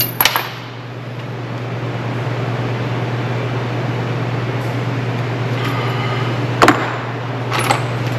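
Steady low hum of a running machine, with a few sharp knocks: two at the start, one about two-thirds of the way in and another near the end.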